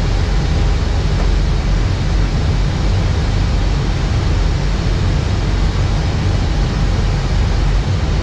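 Steady cockpit noise of an Airbus airliner in flight on approach: a constant rush of air with a low rumble underneath, unchanging throughout.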